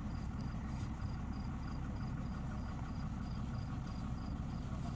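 Truck-mounted borewell drilling rig running steadily with a low, even engine drone. A faint high ticking sounds about three times a second over it.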